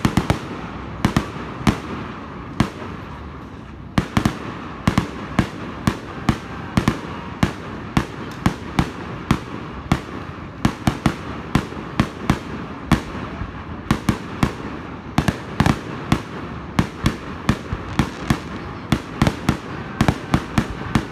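Aerial firework shells bursting in a rapid, unbroken run of sharp bangs, several a second. The run grows louder and denser about four seconds in.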